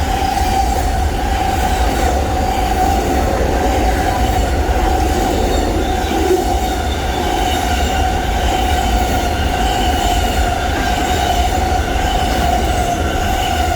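Amtrak Auto Train's long string of autorack cars rolling past at speed: a steady low rumble with a constant high-pitched squeal from the wheels running over it.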